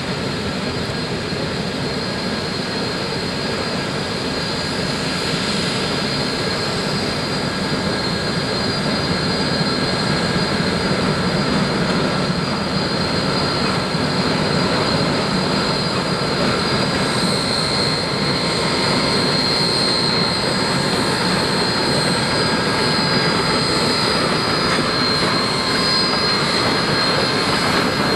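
Three Shay geared steam locomotives working hard together, their rapid exhaust blending into a dense steady roar that grows louder as they draw near and pass close by.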